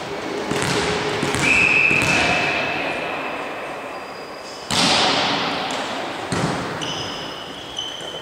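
A referee's whistle blows one steady blast, then about three seconds later a volleyball is served with a loud smack that rings through the hall, and a second hit follows as the serve is passed. Short high squeaks of shoes on the court floor come near the end.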